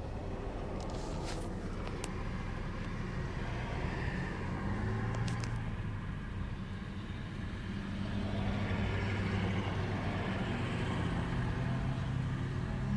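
Motor vehicle engines in road traffic, a steady hum that swells twice as vehicles pass or draw near.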